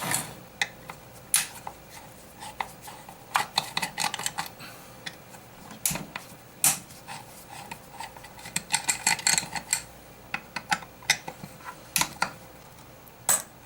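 Screws being taken out of a car amplifier's metal case by hand: irregular light metallic clicks and clinks of screwdriver and loose screws, coming in bunches.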